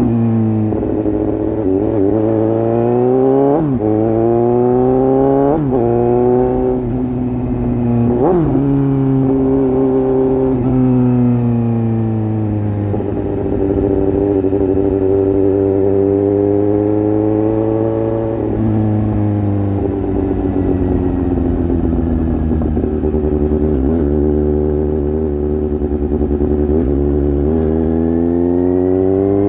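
Suzuki GSX-S750's inline-four engine through an exhaust with its dB killer removed, accelerating through four quick upshifts in the first eight seconds or so, each a brief drop in revs. It then holds steady revs, falls off in the second half, and pulls up again near the end.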